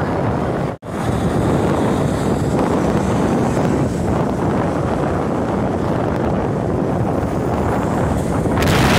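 Wind buffeting the phone's microphone as a steady rushing noise. It cuts out for an instant about a second in and gusts louder near the end.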